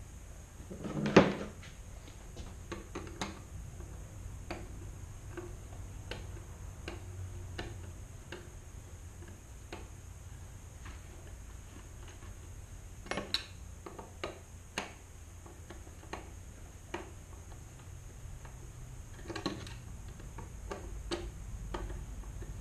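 Scattered clicks and small knocks of hardware being handled at the head of a string trimmer while a plastic Edgit Pro edger disc is fitted, with one louder knock about a second in.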